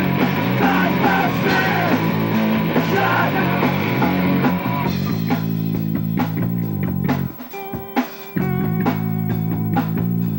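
Live rock band: loud electric guitars and a drum kit, with singing over the dense full-band sound in the first few seconds. About five seconds in it thins out to ringing guitar chords punctuated by drum hits, with a brief break in the low end around seven and a half seconds.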